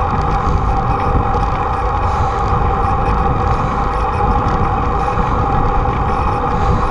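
Wind rushing over a bicycle-mounted camera's microphone while riding, with a steady droning hum underneath.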